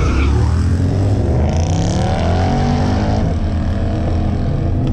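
Street-race cars, a Jeep SUV among them, launching from a standing start at full throttle and accelerating hard away, the engine note climbing.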